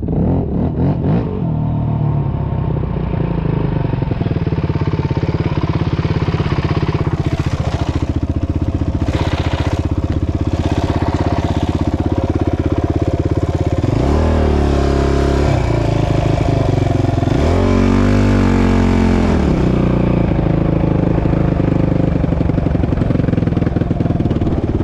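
ATV engine running steadily close by, with a rattle through the first half, then revved up and back down twice past the middle.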